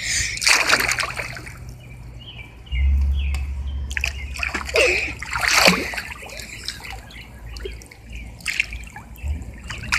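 Swimming-pool water splashing and sloshing against a phone microphone as it goes under the surface, with muffled underwater sound. A low, steady hum sets in about three seconds in and lasts several seconds.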